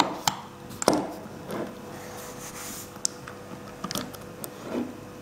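Saw chain and guide bar of a mini cordless chainsaw being handled and fitted around the drive sprocket: a few sharp metallic clicks and clinks, the loudest about a second in, then fainter scattered ticks.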